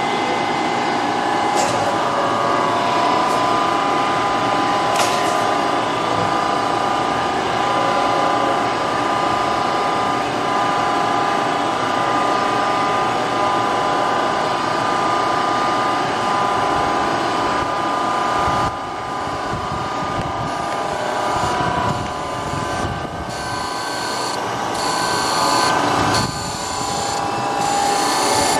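Brown & Sharpe 1236 Micromaster hydraulic surface grinder running, its 5 HP wheel motor and hydraulics giving a steady whine. Later on the grinding wheel cuts steel, adding a hiss that comes and goes as the table traverses back and forth.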